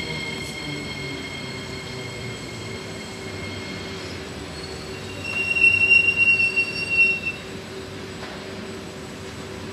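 Singapore MRT electric train pulling into the station: a steady high whine fades out over the first few seconds, then a loud high-pitched wheel squeal lasting about two seconds comes in halfway through, over a low steady hum.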